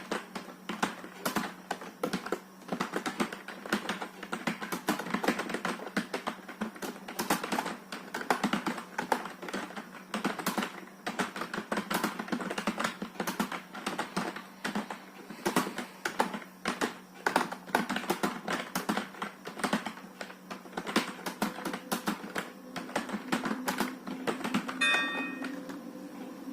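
Fast, irregular typing on a computer keyboard during a timed typing test. The keystrokes stop a little before the end, followed by a brief electronic tone.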